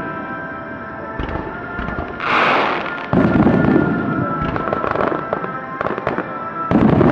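Aerial fireworks in a rapid star-mine barrage. There is a hissing rush about two seconds in, then a deep boom of shells bursting about three seconds in. Sharp crackles follow, and another boom comes near the end.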